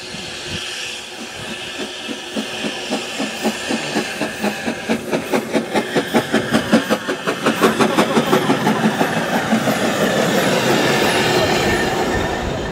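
Steam locomotive Palmerston, a George England 0-4-0 saddle tank, working past at close range: its exhaust chuffs build to a fast, even beat of about four a second, over steam hiss and wheel noise on the narrow-gauge track. Near the end the beat gives way to a steadier rush of noise.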